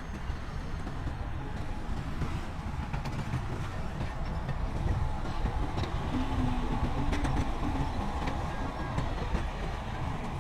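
Heavy diesel earthmoving machinery running with a steady low rumble, with scattered clanks and knocks and a brief tone a little past the middle.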